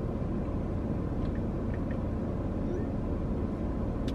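Steady rumble and hiss inside a car cabin with the engine running and the air conditioning blowing to cool the hot car, with a few faint clicks.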